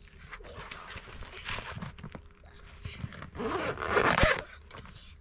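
Zipper on a soft fabric suitcase being pulled along in several short rasping strokes, loudest about four seconds in.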